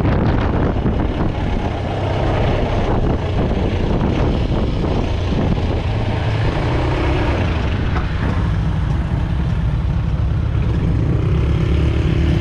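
Quad bike engine running during a ride, with road and wind noise; its note settles into a steadier hum near the end.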